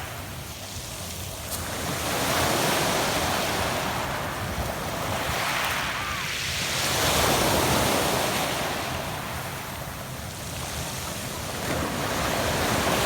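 Adriatic Sea waves breaking and washing back on a pebble beach, surging in about three swells some five seconds apart, the loudest in the middle.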